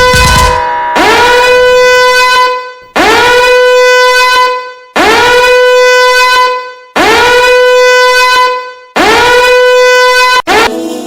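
Loud horn sounded in repeated blasts about every two seconds, five in a row, each swooping up into a steady bright tone and then tailing off. A sharp click comes near the end as the sound changes.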